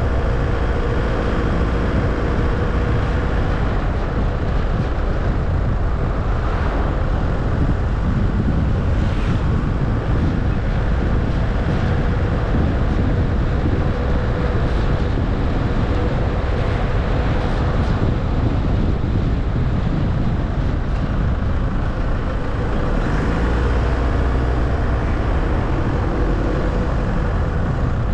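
Car driving at a steady speed: an even rumble of engine and tyres on the road with a faint steady hum above it.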